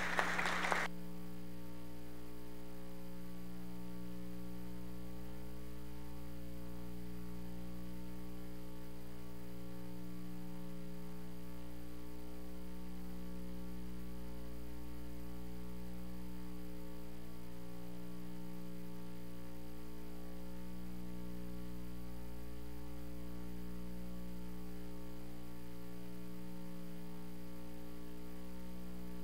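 Steady electrical mains hum with many overtones, running unchanged on the recording's audio feed. A brief burst of room sound cuts off abruptly about a second in, leaving only the hum.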